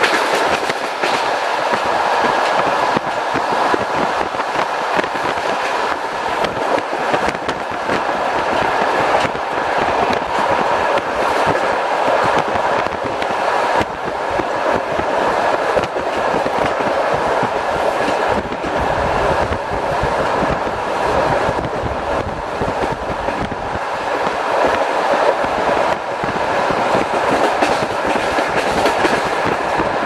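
Passenger train running at speed: steady wheel-on-rail running noise with repeated clacks over the track, and a deeper rumble swelling for a few seconds past the middle.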